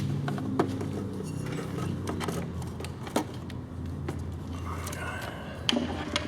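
A few light clicks and knocks from a radio-controlled truck's body and parts being handled during disassembly, over a steady low hum.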